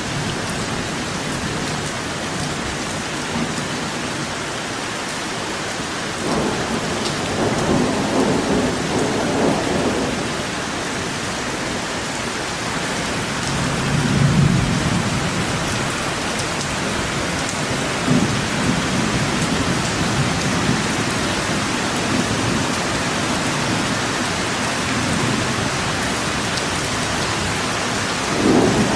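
Steady rain falling, with low rumbles of thunder swelling up and fading away a few times.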